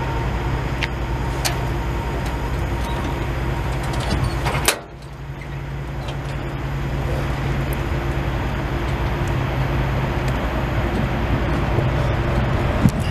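A semi truck's tilt hood being opened by hand, over the steady low drone of the truck idling. One sharp knock about five seconds in.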